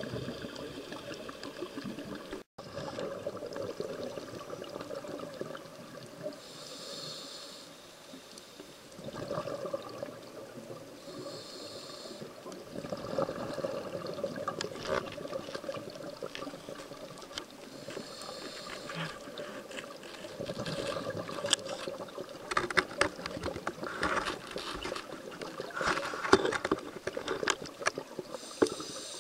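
Scuba diver breathing through a regulator underwater: hissing breaths every few seconds with gurgling, bubbling exhalations between them, and scattered sharp clicks in the second half.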